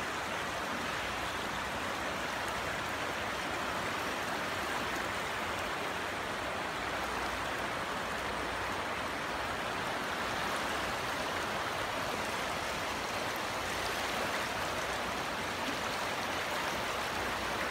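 A river in full flood rushing past: the fast, churning water makes a steady, even rushing noise.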